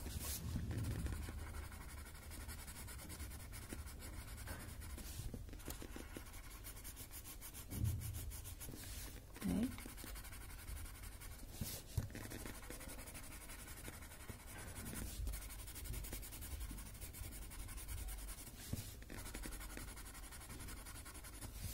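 Paper blending stump rubbing graphite into a paper drawing tile: a faint, uneven scratchy rubbing as the shading is smoothed towards the centre.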